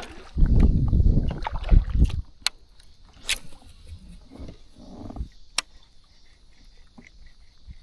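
Handling noise aboard a kayak: heavy low bumping and rumbling for the first two seconds, then a few sharp clicks. Near the end, faint insects chirping in an even rhythm.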